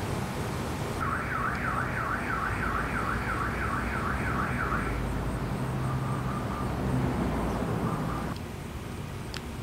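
Car alarm sounding a rapid up-and-down warble, about three sweeps a second, for roughly four seconds, then two short steady tones, over a steady low background rumble that drops off suddenly near the end.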